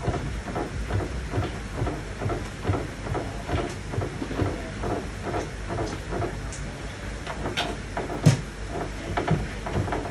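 Irregular soft knocks, creaks and rubbing from a padded treatment couch and a leg being flexed on it during passive exercise, with a sharper knock about eight seconds in, over a steady low hum.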